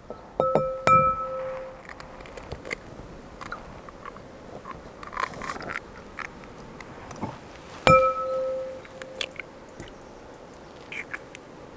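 Eggs knocked against the rim of a glass mixing bowl, near the start and again about eight seconds in, each knock leaving the glass ringing briefly. Quieter crackles and clicks of shell breaking and eggs dropping into the bowl come in between.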